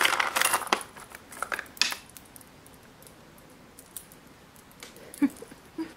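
A pet cat playing with a hand on a wooden floor among clothes: rustling and light scraping for about the first two seconds, then quiet with a few faint clicks and two short soft sounds near the end.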